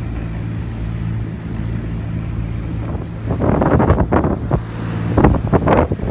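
A sailboat's inboard engine running steadily under motor. From about halfway through, wind buffets the microphone in loud, irregular gusts.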